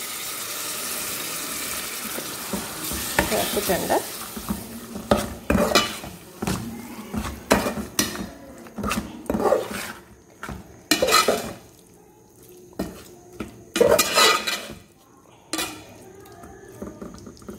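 Vinegar poured into the hot spiced pickle paste sizzles with a steady hiss for the first three seconds or so. Then a metal spoon stirs the thick paste around the metal pot, with irregular scrapes and clinks against the pot's sides and bottom.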